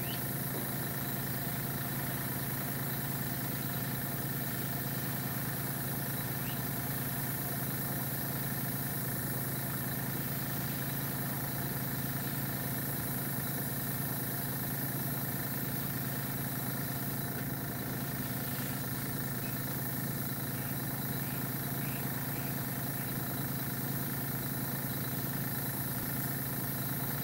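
Small airbrush compressor running with a steady, even hum; it is a quiet-running unit.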